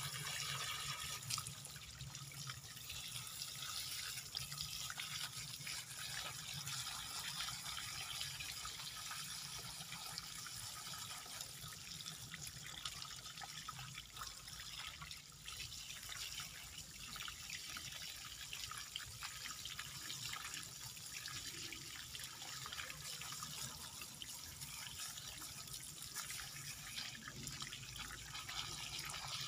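Water from a garden hose, spread by a thumb over its mouth, splashing steadily onto a rock and bonsai roots.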